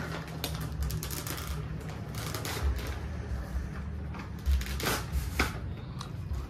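Paper gift wrapping and cardboard boxes being handled and unwrapped: irregular rustling and crinkling of paper with a few sharper clicks and taps, over a steady low hum.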